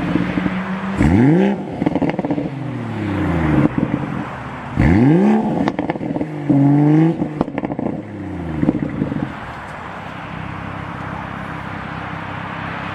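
BMW M140i's turbocharged 3.0-litre straight-six through an Akrapovic exhaust, revved sharply several times, each rev falling back with crackles and pops on the overrun. It then settles to a steady idle for the last few seconds.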